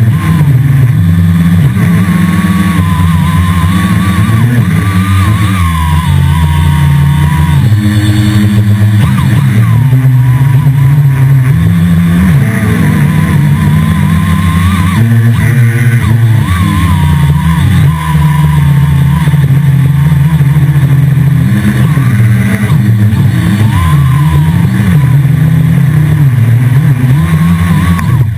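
Multirotor copter's electric motors and propellers buzzing loudly right at the onboard camera, the pitch rising and falling as the throttle changes in flight.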